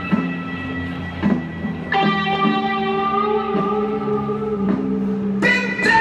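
Loud music with sustained notes over a stepping bass line; higher parts come in about two seconds in, and it grows fuller near the end.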